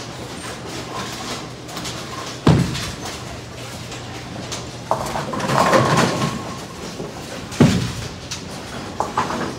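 Bowling alley: a heavy thud of a bowling ball landing on the wooden lane about two and a half seconds in, a clatter of pins a couple of seconds later, and another ball thud near the end.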